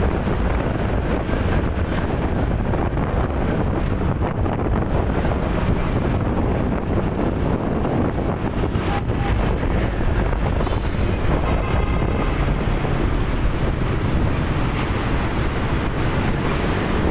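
Steady wind buffeting the microphone of a moving vehicle, over a constant low rumble of engine and road noise.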